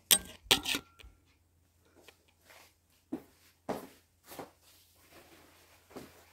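Two sharp knocks of close handling in the first second, then scattered soft footsteps and rustling as clothes are moved about.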